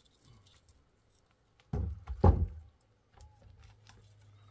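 A dull thud followed by a louder thud about half a second later.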